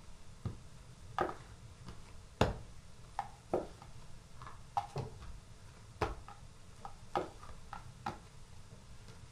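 A kitchen knife cutting soft yeast dough into portions on a wooden table, with about a dozen irregular short knocks as the blade meets the tabletop and dough pieces are set down.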